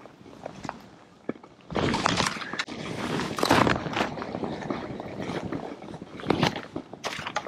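Skis swishing and scraping through powder snow on a downhill run, in long surges with each turn after a quieter first second and a half, with small knocks and ticks mixed in.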